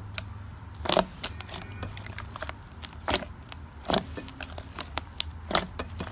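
Thick, soft slime being squeezed and kneaded by hand, giving irregular sharp pops and squelchy clicks as trapped air bursts. The loudest pops come about a second in, around three and four seconds in, and shortly before the end.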